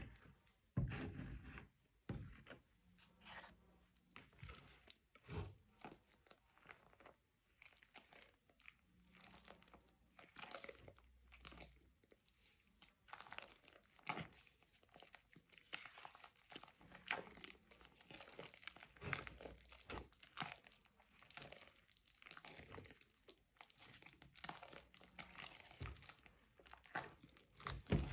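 Hand kneading and stirring thick acrylic texture paste in a plastic bucket: a faint, irregular run of soft mixing sounds, with a louder bump about a second in.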